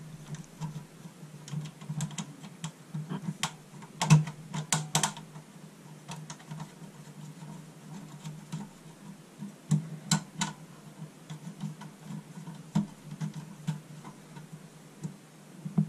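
Scattered light clicks and knocks of a plastic 120 mm case fan and its cord being handled and seated in a computer case, bunched into quicker runs of clicks around four to five seconds in and again around ten seconds in, over a steady low hum.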